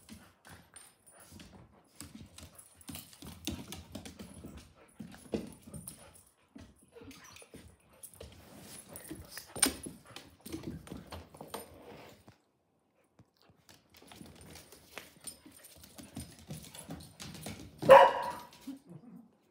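Two dogs play-fighting: scuffling, with claws clicking on a wooden floor and low growly noises, a short pause about twelve seconds in, then one loud bark near the end.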